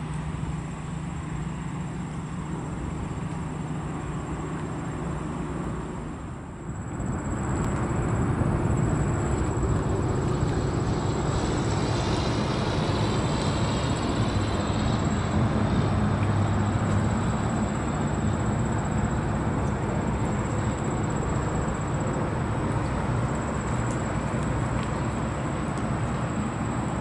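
Towboat's diesel engines droning steadily as it pushes a loaded sand barge, with a low hum; the drone grows louder and fuller about seven seconds in.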